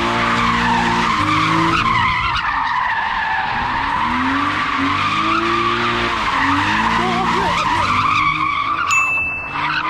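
A BMW E34 Touring with a swapped-in S50 straight-six drifting in circles: the engine revs up and down over and over while the rear tyres squeal steadily. Near the end the sound changes to a short high tone.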